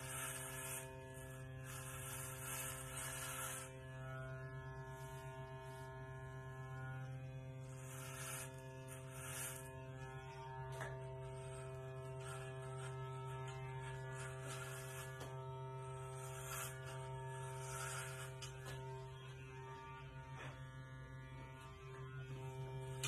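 Electric hair clippers running with a steady, unbroken buzz as they are passed over a closely shaved scalp, with short stretches of hiss every few seconds as the blade runs through the stubble.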